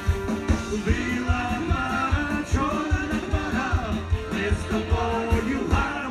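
Live band playing a song through a PA system: a singing voice over a steady drum beat.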